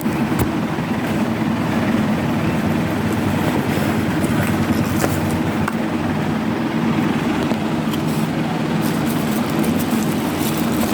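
Steady background noise with a low hum, and a few faint clicks.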